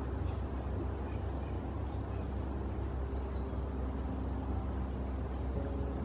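Steady high-pitched insect chorus, one unbroken drone, over a constant low rumble.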